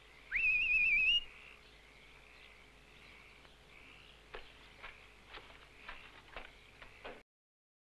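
A short, loud whistle about a second long that glides upward and then warbles rapidly. It is followed by a faint chirping night ambience and a few soft footfalls on the ground near the end.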